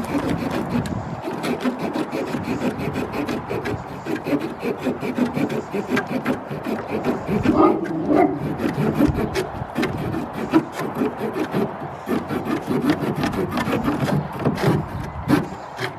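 A Swiss Army pocket-knife saw blade cutting through wood with quick, steady back-and-forth strokes.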